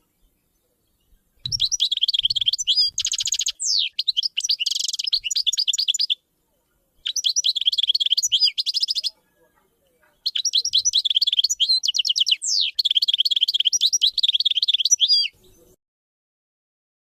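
A small songbird singing long, fast, twittering song phrases with buzzy rattled notes mixed in, in three bursts with short pauses between them.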